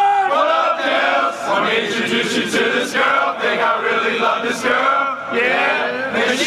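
A group of men's voices chanting together.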